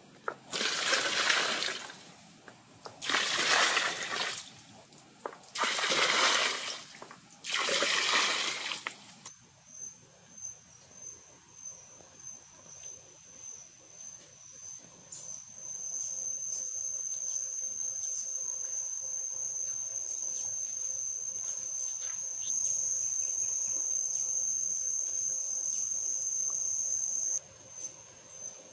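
Water splashing into a stone-lined pool, four loud splashes of about a second and a half each over the first nine seconds. Later an insect buzzes in the background, a steady high-pitched drone that starts about halfway through and cuts off shortly before the end.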